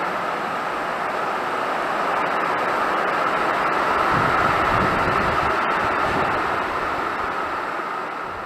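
Heavy storm rain pelting down on a corrugated metal roof, with gusting wind. A strong gust about four seconds in buffets the microphone as the sound swells, and it fades down near the end.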